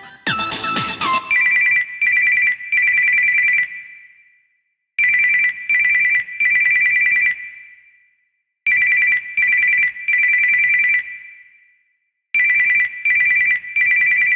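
Samsung Galaxy S2 stock ringtone imitating an old telephone bell, played through the phone's speaker: a trilling ring in groups of three, two short rings and a longer one that fades out, repeating about every three and a half seconds. A melodic ringtone ends about a second in, just before it.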